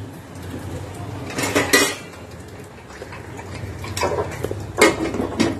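Steel cookware clanking on a gas stove as a pressure cooker is closed: two sharp metal knocks about a second and a half in, then three more in the last second and a half, over a low steady hum.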